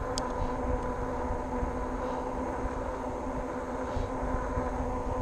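RadRover fat-tire e-bike riding along a paved path: a steady hum from the rear hub motor and fat tyres, with wind rumbling on the microphone.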